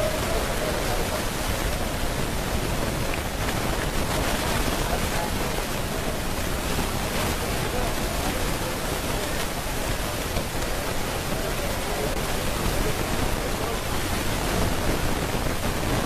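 Steady, even rushing noise with faint voices underneath.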